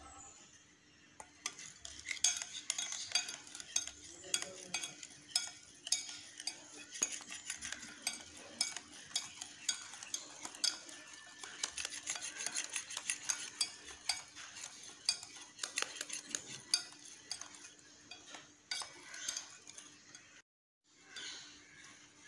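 Wire balloon whisk stirring thick egg batter in a metal bowl as flour is mixed in, its wires clicking and scraping against the bowl several times a second. The sound drops out for a moment near the end.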